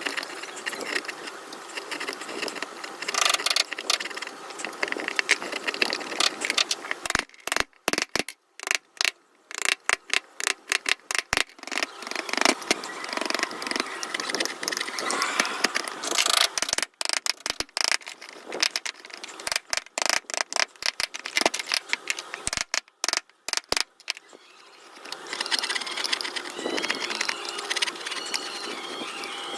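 Hand carving of wood: a chisel scraping and cutting into the wood, with a long run of sharp, irregular taps in the middle.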